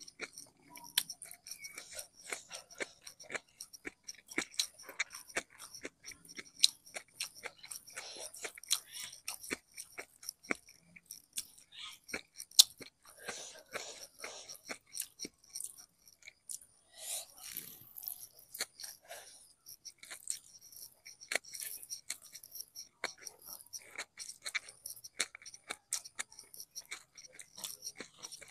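A person eating by hand: close-miked chewing with crisp crunches and many sharp mouth clicks and smacks, denser in a few stretches.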